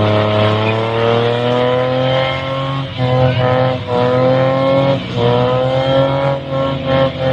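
Car engine held at high revs during a burnout, the pitch creeping up, with the revs dropping briefly and coming back several times in the second half, over the noise of the spinning rear tyres.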